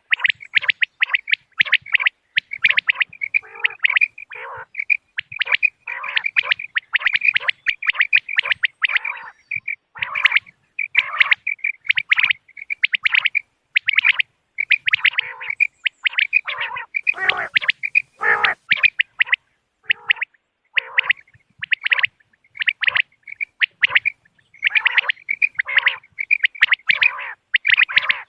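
Common quail calling: short, sharp notes in quick groups, repeated over and over without pause. It is the call played as a lure in quail hunting.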